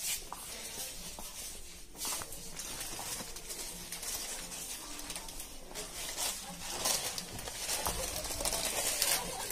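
Crinkling and rustling of plastic-wrapped instant noodle packets being handled on a shelf, in sharp bursts several times, over a low murmur of shop noise.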